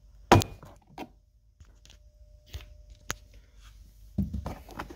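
Plastic interior trim piece being pried up by hand: one sharp click about a third of a second in, then a few lighter clicks and some rustling handling noise near the end.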